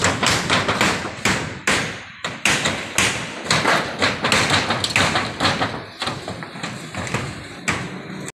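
Hammer blows on a rusty corrugated metal roof sheet, about three a second in an uneven rhythm, as the roofing is worked loose to be stripped off.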